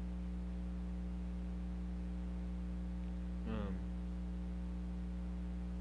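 Steady electrical mains hum, a low buzz of several fixed tones, with a brief vocal sound about three and a half seconds in.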